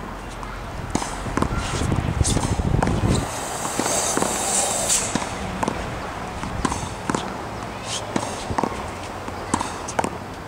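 Tennis ball rally against a hard practice wall: sharp knocks of the racket striking the ball, the ball hitting the wall and bouncing on the hard court, coming every half-second to a second. A rushing noise swells between about two and five seconds in.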